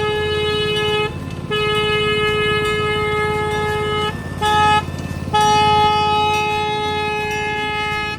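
Train horn sounding the grade-crossing signal of long, long, short, long blasts on one steady pitch. A low rumble of the running train lies underneath.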